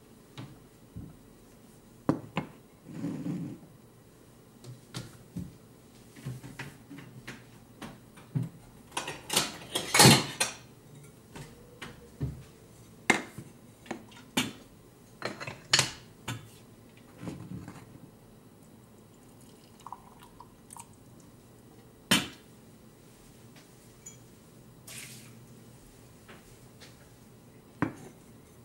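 Ceramic dishes handled on a kitchen counter: a mug set down on its coaster and a plate moved about, giving a scatter of clinks and knocks, loudest and busiest about ten seconds in.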